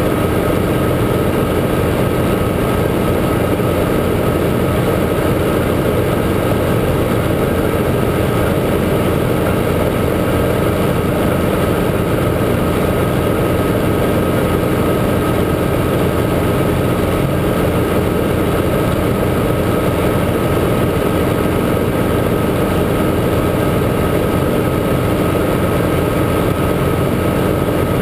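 Guimbal Cabri G2 helicopter's four-cylinder Lycoming piston engine and rotors running steadily at a constant setting, with a thin steady whine above the drone.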